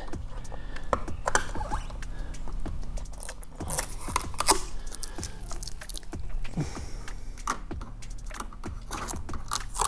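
Gloved hands picking and peeling at tape on a skylight's metal cladding: scattered small clicks, taps and scrapes.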